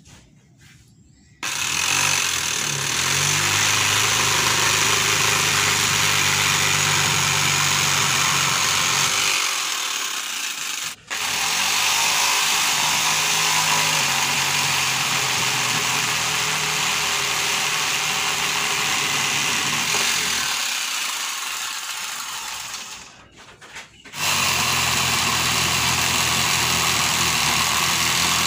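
Electric drill driving a homemade drill-powered jigsaw, running steadily in long stretches. The sound cuts out abruptly about a second in, dips around ten seconds, and breaks briefly near the end before it resumes.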